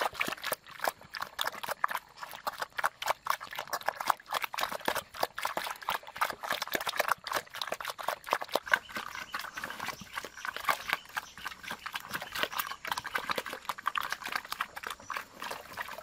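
Pig eating wet slop from a wooden trough: rapid, irregular wet smacking, slurping and chomping.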